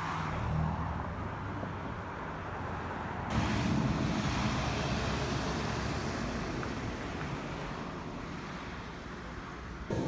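Road vehicle noise: a steady rushing with a low rumble that jumps louder about three seconds in, then slowly fades.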